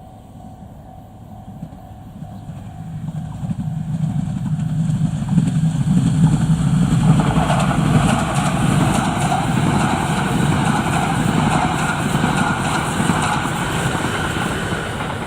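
E3-series shinkansen train passing at speed on conventional track: the rumble and wheel-on-rail noise build over the first few seconds, stay loud through the middle, and start to fade near the end.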